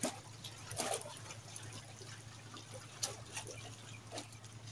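Faint trickling and dripping of water, with a few small clicks.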